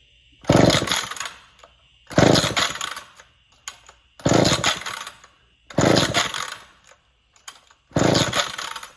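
Cold McCulloch Pro Mac 10-10 two-stroke chainsaw being pull-started with the choke on: five pulls of the starter cord, about one every two seconds, each turning the engine over briefly before it dies away again without keeping running.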